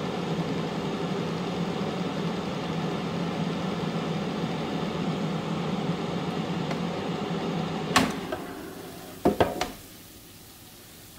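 Power XL air fryer's fan running with a steady hum, then a sharp click about eight seconds in, after which the fan winds down. A few quick plastic clunks follow as the basket drawer is pulled out.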